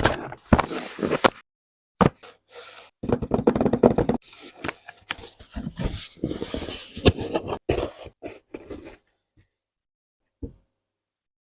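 A keyboard box and its packaging being handled and opened: irregular scrapes, knocks and rustling in short bursts broken by dead-silent gaps. Quiet after about nine seconds except for one soft knock.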